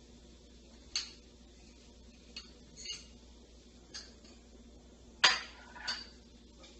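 A spoon clinking and knocking against ceramic bowls while crushed banana is scraped into cake batter: about six separate clinks, the loudest about five seconds in.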